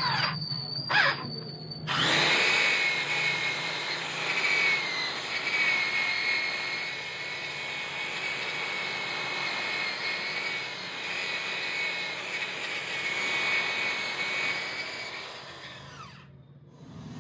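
A power tool's electric motor switched on about two seconds in, running with a wavering high whine for some fourteen seconds, then switched off.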